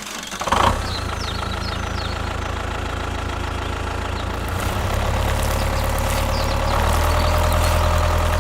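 Engine running steadily with a low rumble, growing a little louder about five seconds in and again near the end.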